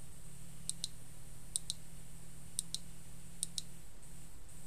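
BeauMents Doppio couples vibrator's motors buzzing with a steady low hum, which drops out briefly near the end and then resumes as it runs on through its modes, still not switched off. Faint sharp double clicks come about once a second.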